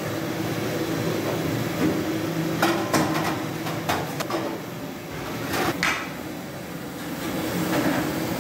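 Steel dishes knocking and clanking against a steel sink as they are washed by hand, about six sharp clanks a few seconds in, over a steady low hum.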